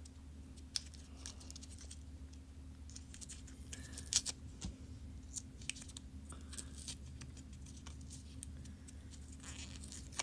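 Blister pack of an LR44 button-cell battery being peeled and picked open by hand: scattered small clicks and crinkles of plastic and card, over a faint steady hum.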